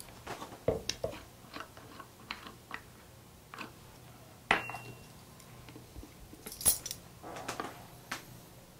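Light clinks and knocks of a metal tablespoon, a steel funnel and plastic bottles being handled on a wooden cart, with one short ringing metal clink about four and a half seconds in.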